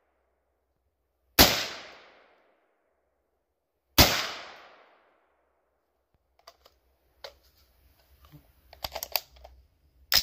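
Two shots from an AR-15 rifle chambered in .450 Bushmaster, about two and a half seconds apart, each trailing off in a long fading echo. Over the last few seconds come a scatter of small clicks and rattles, with one sharper click at the very end.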